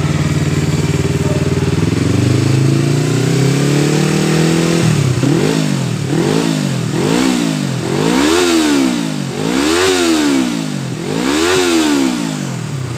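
Yamaha MT-25 250 cc parallel-twin engine through a custom slip-on exhaust with an added inline silencer: idling, then revved up and held for a few seconds, then blipped in about six quick revs that climb higher toward the end. The exhaust note stays mellow, neither booming nor tinny, and the mechanical engine noise is louder than the exhaust.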